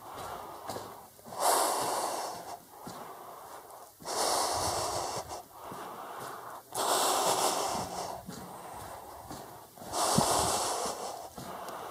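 A person breathing heavily close to the microphone: four loud breaths about three seconds apart, with quieter breaths between them.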